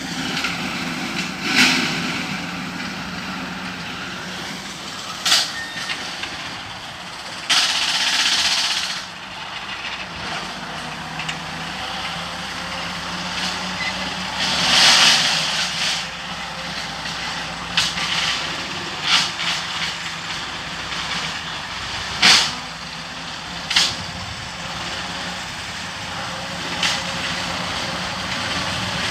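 Engine of a rotary hay mower running steadily while cutting grass, with a few short rushing bursts and sharp clicks now and then.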